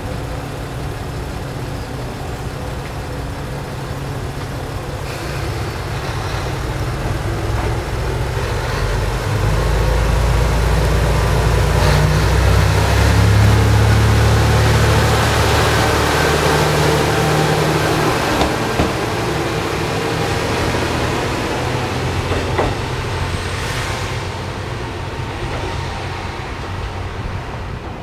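Kiha 220 diesel railcar's engine throttling up as it pulls out, a deep rumble that grows louder as the car passes close by and then fades as it moves away.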